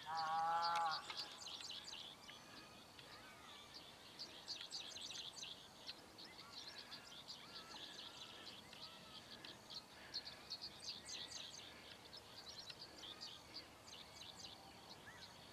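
Songbirds chirping and trilling in a rapid, overlapping chorus. In the first second a louder short wail, about a second long and falling slightly in pitch, rises above them.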